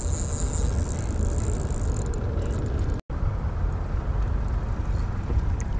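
Steady low rumble, cut off briefly about three seconds in.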